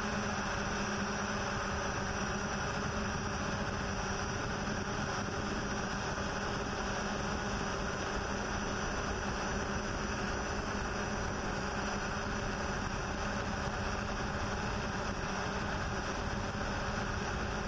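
Hexacopter drone's motors and propellers running in flight: a steady drone of constant pitch over an even rushing noise.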